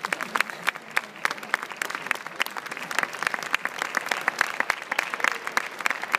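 Audience applauding, with many sharp individual claps close by over the general clapping of the crowd; it picks up at the start and keeps going steadily.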